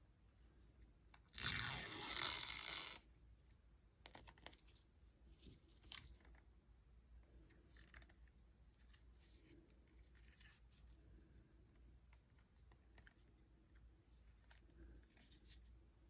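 Packaging being handled: a loud tearing crinkle lasting about a second and a half, starting just over a second in, then faint rustles and light clicks.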